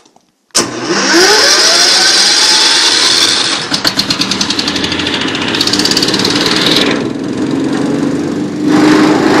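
Industrial vacuum motor switching on about half a second in, its whine rising in pitch as it spins up, then running loud with a steady rushing of air. About halfway through the sound flutters rapidly for a second or so, and late on the hiss drops away briefly before coming back at full strength.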